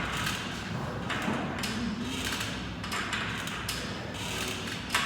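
Irregular thuds and taps of a man getting up on a pull-up bar and starting his pull-ups, with a sharper knock near the end.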